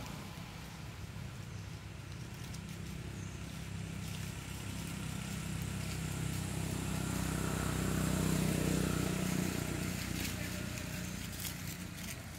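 Low engine hum of a passing motor vehicle, swelling to its loudest about two-thirds of the way through and then fading, with a few light clicks near the end.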